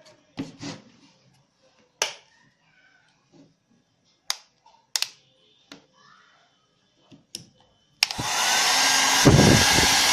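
A few sharp clicks of handling, then about eight seconds in a Nova NHP 8100 1200 W hair dryer switches on suddenly and blows steadily with a thin whine. A low rumble comes in near the end.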